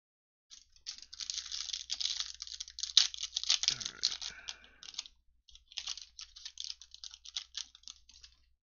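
Foil wrapper of a Score football card pack crinkling and tearing as it is ripped open by hand, then rustling as the cards are pulled out. It is a dense crackle that pauses briefly about five seconds in and then resumes.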